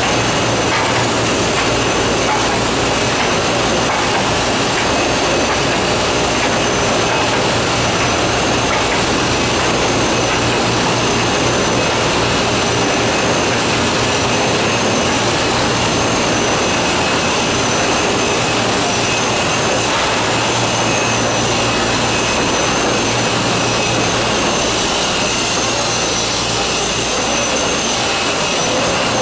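Steady whirring drone of running screen-printing machinery and blowers, with a low hum and a high whine that wavers slightly in pitch.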